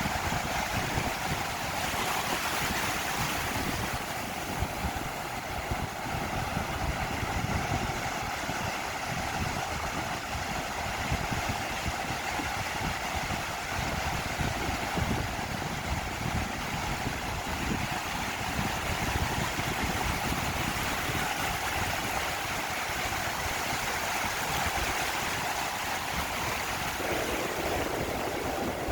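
Sea surf washing steadily onto the beach, with wind buffeting the microphone in an uneven low rumble.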